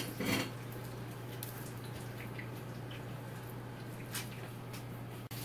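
A few faint clicks and rustles of crispy fried banana fritters being handled in an aluminium foil tray, over a steady low electrical hum.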